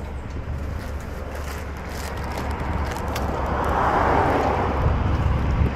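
A road vehicle passing by, its noise swelling about three to four seconds in, over a steady low rumble.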